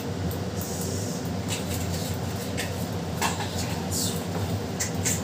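A steady low mechanical hum with a few short, light clinks and taps of cooking utensils against a pan on the stove.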